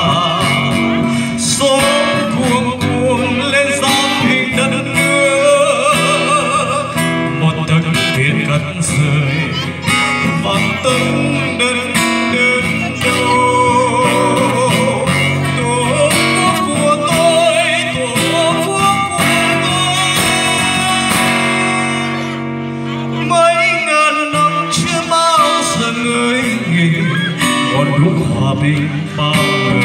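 A man singing a Vietnamese song to his own acoustic guitar accompaniment, amplified through a microphone and speakers, with a short drop in the music about two-thirds of the way through.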